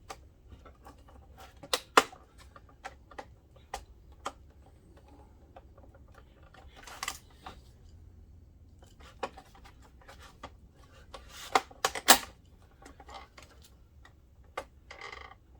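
Irregular clicks, taps and short scrapes of hands handling the plastic housing and parts of a DLP projector being taken apart. The sharpest clicks come about two seconds in and again around twelve seconds.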